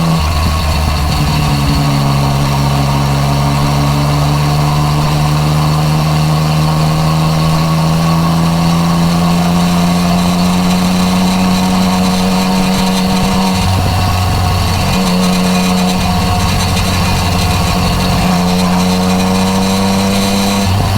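Yamaha MT-09 Tracer's three-cylinder engine through an Akrapovič exhaust, pulling steadily under throttle while riding, its pitch climbing slowly. There are brief breaks in the note around the middle and again a few seconds later, then the note drops near the end.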